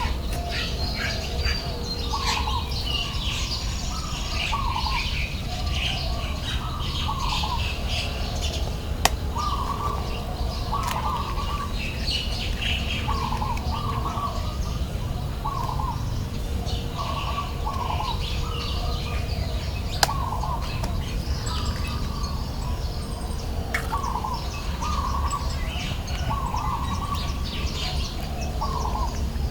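Birds calling outdoors: a short call repeated about once a second, with higher chirps over it, above a steady low rumble. Two sharp clicks stand out, about a third of the way in and again around two thirds.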